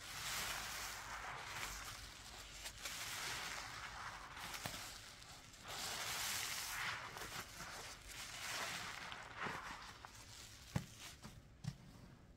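Soapy sponge loaded with thick dish-soap lather being squeezed and worked, making wet squishing in slow repeated swells about every three seconds, with a few light clicks near the end.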